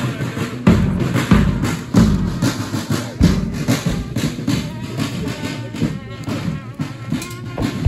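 Marching brass band playing, with sousaphones and other low brass carrying the tune over a bass drum and snare drum. The drum keeps a steady march beat of about three strokes every two seconds.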